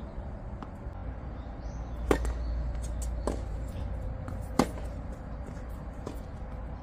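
Tennis rally on a hard court: sharp pops of the ball off the rackets and court, a handful in all, the loudest at about two seconds in and just past the middle. A low steady rumble runs beneath.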